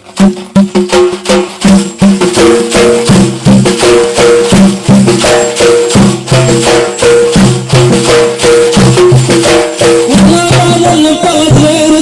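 Instrumental music interlude: a fast, steady percussion beat with a melody line played over it, starting suddenly as the singing stops.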